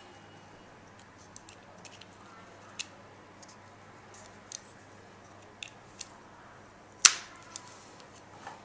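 Scattered light clicks and taps of the pull-start and a hand tool being handled while the pull-start is refitted to an RC nitro engine, with one sharper click about seven seconds in.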